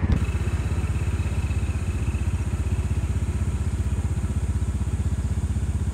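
Motorbike engine idling with a steady, even putter.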